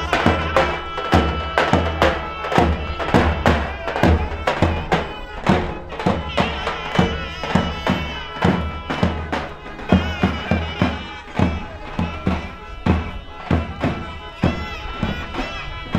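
Live traditional wedding music: a wind instrument plays an ornamented, wavering melody over a steady drum beat.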